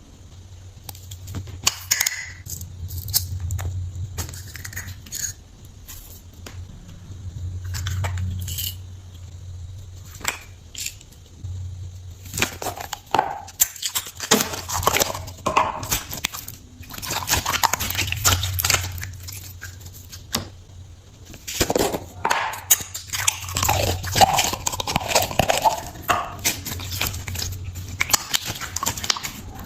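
Slime being squished and poked by hand, giving irregular crackling, clicking and popping sounds. The crackling thickens into longer bouts partway through and again near the end, over a steady low hum.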